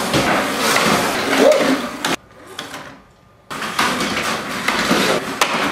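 Mini-Z slot cars' small electric motors whirring as the cars run around the slot track, with rattling clatter. The sound drops away abruptly for about a second and a half in the middle, then comes back.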